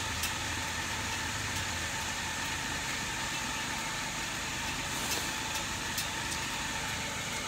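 Steady whir of the blower of a greenhouse geothermal (subterranean heating and cooling) air system, pushing air through buried pipes, with a low hum underneath that drops away about two seconds in.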